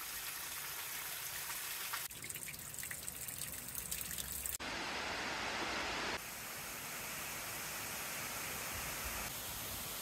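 Falling water from small cascades and waterfalls splashing onto rock and into a pool. It is a steady rushing that changes abruptly about two, four and a half, and six seconds in, and is loudest for a second and a half in the middle.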